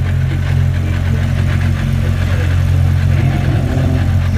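Lamborghini Huracán Super Trofeo race car's V10 engine idling with a steady, low drone.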